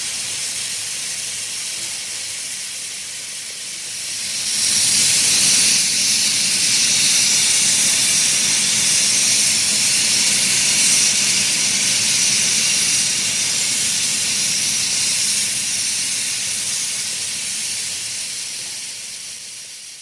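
Steam train brakes hissing in one long, steady release, stepping up louder about four seconds in and fading away near the end, with a faint low rumble beneath the hiss.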